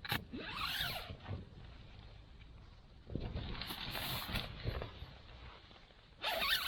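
Camping gear being handled while a tent is pitched: nylon fabric rustling and a zip being worked, in several separate bouts with a sharp click at the start.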